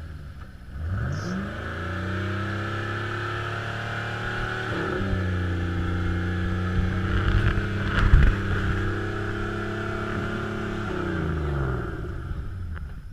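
Off-road 4x4 engine revving up, held at high revs for about ten seconds with a brief dip, then dropping back. A sharp knock comes about eight seconds in.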